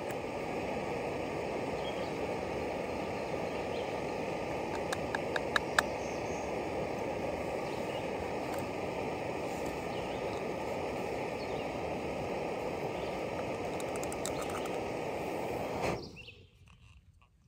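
Backpacking gas canister stove burning steadily under a cooking pot, with a few sharp clicks about five to six seconds in. The burner cuts off abruptly near the end as the stove is shut off.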